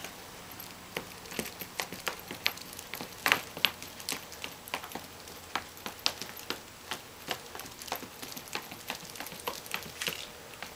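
A Pomeranian's footsteps in dog booties on a hardwood floor: light, irregular clicks and taps, a few a second, with a louder clatter about three seconds in.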